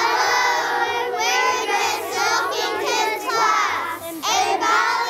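A group of children singing together in unison, with a faint low backing beneath.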